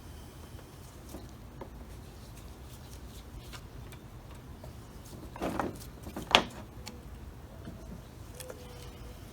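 Small Holley carburetor parts being removed and handled: a few light clicks, then a louder clatter and one sharp click about five to six seconds in.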